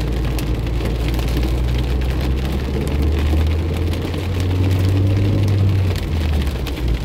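Heavy rain drumming on a car's windshield and roof, heard from inside the cabin as a steady dense patter of many fine hits. Under it runs the car's low rumble, swelling a little partway through.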